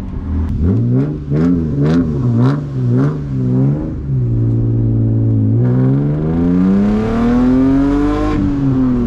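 BMW E36 328i's 2.8-litre straight-six revved in a run of quick throttle blips, with sharp exhaust pops, then settling to idle before one longer, slower rev that rises and falls.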